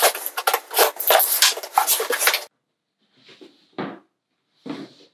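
A cardboard shipping carton being cut and torn open: about two and a half seconds of rapid tearing and crackling, then after a pause a few short scuffs and thumps as the cardboard flaps are folded back and the box inside is handled.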